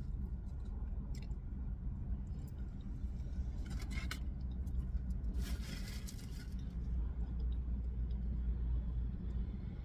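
Steady low rumble of a car idling, heard from inside the cabin, with a few short higher noises about one second in, about four seconds in, and a longer one around six seconds in.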